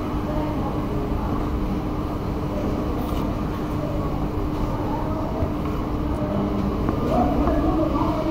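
A steady machine drone with one constant hum, like a motor or fan running continuously, swelling a little near the end.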